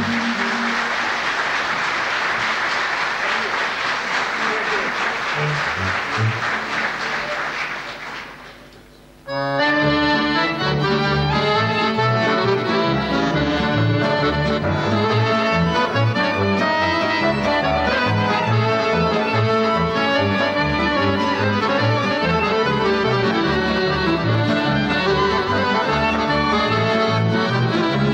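Audience applause that fades away over the first eight seconds or so; after a short lull an accordion-led folk band with clarinet, cimbalom, double bass and strings strikes up an instrumental tune with a steady beat.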